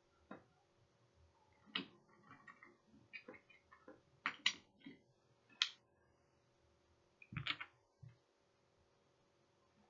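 Small wooden story pieces being handled and set down: a scatter of light clicks and knocks of wood, a few louder taps about four and a half seconds in and again near the end, over a faint steady hum.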